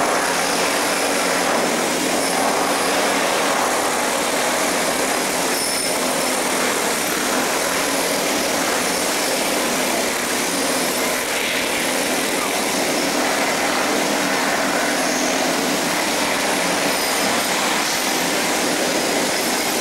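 Steady crowd noise of a busy pedestrian street: a dense, even murmur of many people.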